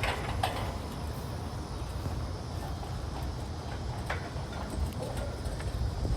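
Footsteps on pavement, a few sharp irregular steps, over a steady low rumble.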